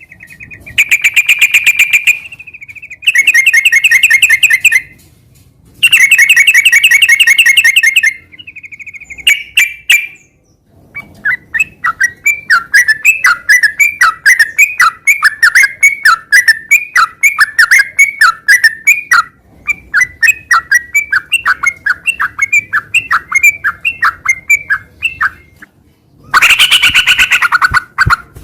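Yellow-vented bulbul (trucukan) singing loudly: rapid trilled bursts at first, then a long, fast run of chattering notes, then louder calls near the end.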